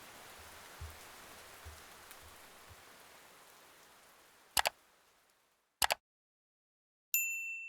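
Steady rain sound fading out over a few seconds, followed by two sharp clicks about a second apart and a moment of silence. Near the end a bright bell-like ding sounds and rings on.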